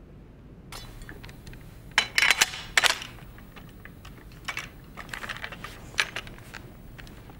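Steel socket bayonet drawn from its leather scabbard and fitted onto a musket's muzzle: a run of metallic scrapes and clicks, loudest about two and three seconds in, with lighter clicks later and another sharp click about six seconds in.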